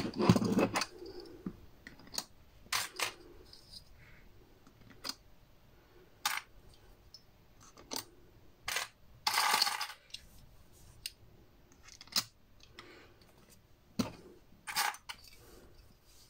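Clips being handled and clamped onto the album's glued pockets to hold them while the glue sets: scattered clicks and light knocks, with a longer clatter about nine seconds in.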